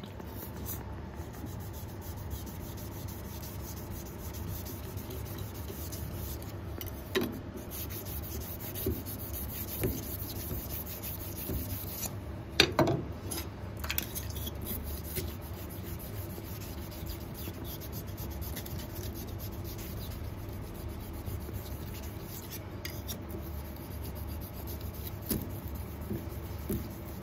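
Steady abrasive rubbing of a rusty carbon-steel knife blade against a rust eraser or whetstone, scrubbing off surface rust, with a few brief knocks along the way.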